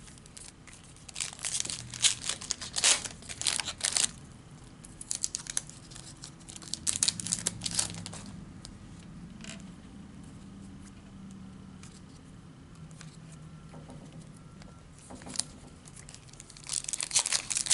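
Foil trading-card packs being torn open and their wrappers crinkled, in clusters of sharp tearing and rustling, with a quieter lull in the middle before another burst near the end.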